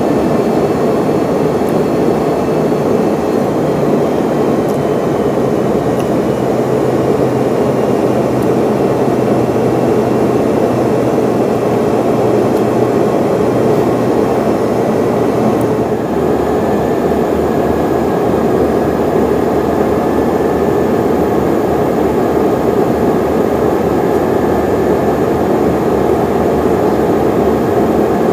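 Steady cabin roar of a Yakovlev Yak-40K in flight, heard from a window seat beside its rear-mounted Ivchenko AI-25 turbofans. The engine note changes about halfway through, with the low hum dropping in pitch.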